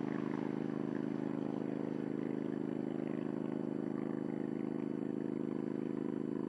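Engine of a racing lawnmower running as the mower drives along, a steady drone that holds one pitch.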